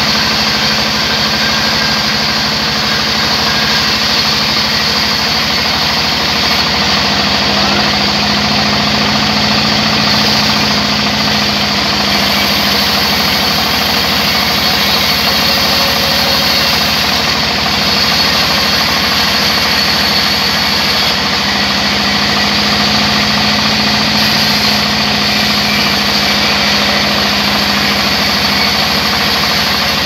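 Large sawmill band saw running steadily while a log is pushed through its blade, with a low hum that grows stronger twice.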